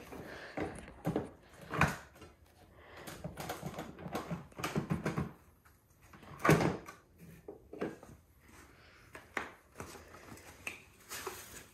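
Hard plastic battery-filled tool cases being handled and stacked: a string of knocks and clunks with rustling between them, the loudest a heavy thump about six and a half seconds in.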